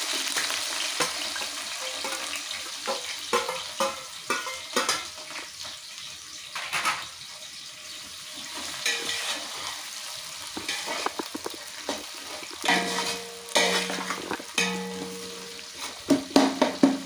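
Sliced onions frying in hot oil and ghee in a large pot. A loud sizzle fades over the first couple of seconds, then continues more quietly. A spoon scrapes and clatters against the pot as the onions are stirred, with a flurry of louder clatters near the end.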